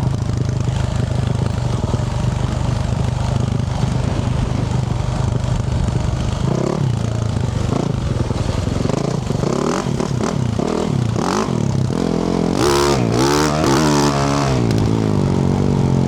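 2024 Yamaha YZ450F's single-cylinder four-stroke engine through a Yoshimura RS-12 exhaust, running steadily at low revs, then revving up and down several times from about halfway in, hardest in a few high revs near the end before settling back to a steady low beat.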